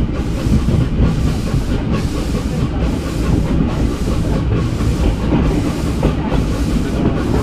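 Adler steam train's open carriage rolling along the track: a steady, loud rumble and rattle of wheels on rails heard from on board.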